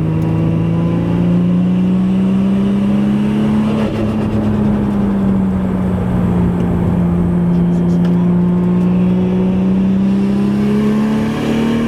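Nissan R34 Skyline GT-R's RB26 straight-six engine running under load at steady mid revs while being driven. Its pitch climbs gently, eases off in the middle and climbs again near the end.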